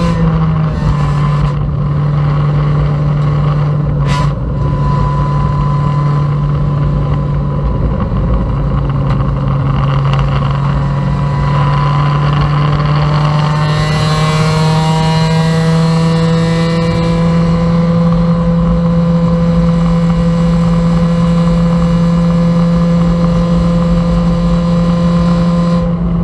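Honda Civic race car's four-cylinder engine at high revs, heard from inside the stripped cockpit over wind and road noise. The engine note drops slightly just after the start, then holds steady and climbs slowly in pitch through the second half as the car pulls.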